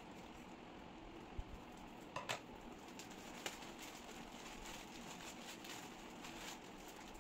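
Plastic courier mailer bag being cut with scissors and pulled open: faint rustling of the plastic with a few sharp clicks, most of them between one and four seconds in.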